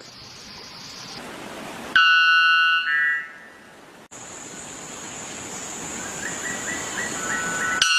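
White bellbird calling: a sudden, loud, ringing call about two seconds in that steps up in pitch partway through and lasts about a second.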